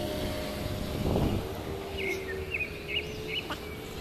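Outdoor street ambience: a steady hum of engine-like traffic noise, a brief louder rush of noise about a second in, and a bird chirping four or five short notes in the second half.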